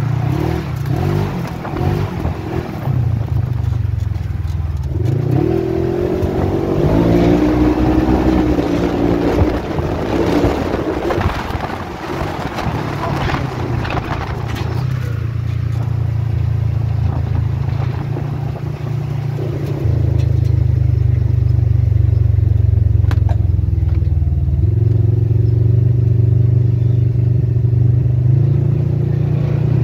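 Polaris RZR side-by-side's engine running under way, its pitch rising and falling as it speeds up and slows, with wind noise and occasional rattles. It runs louder and steadier from about two-thirds of the way in.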